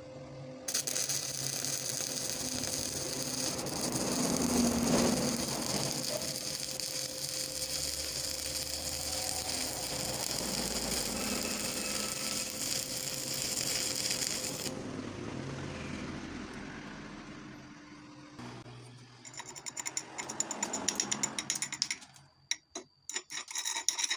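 Electric welding arc crackling and hissing, starting abruptly just under a second in and cutting off about fifteen seconds in. Rapid sharp clicks and ticks follow near the end.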